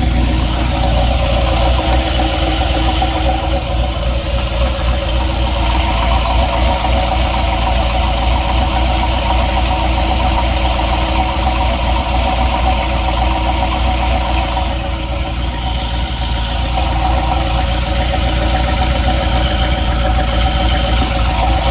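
Engine idling steadily, with a knocking noise running through it.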